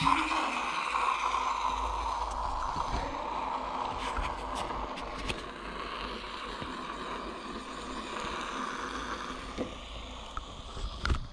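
Drink pouring from an aluminium can into a stainless steel cup, a steady splashing stream that slowly eases off. A few short clicks come about four to five seconds in and again near the end.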